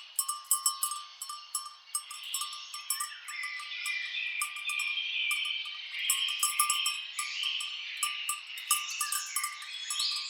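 Many birds chirping and calling together, with the repeated clink of bells on grazing cattle.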